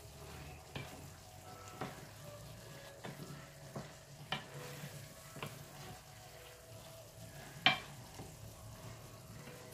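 A wooden spoon stirring thick dinuguan frying in a stainless steel Salad Master skillet: a faint steady sizzle with the spoon knocking against the pan now and then, the loudest knock about three-quarters of the way through.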